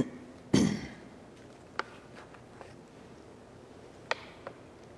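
A single short thump about half a second in, then a few faint clicks over quiet room tone.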